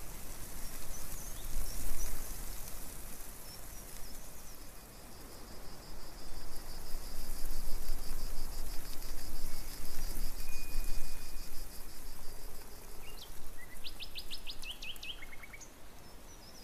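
Natural outdoor ambience: a steady rushing hiss with wind buffeting the microphone, a high, rapid, evenly pulsed trill through the middle, and a bird singing a short phrase of quick notes near the end.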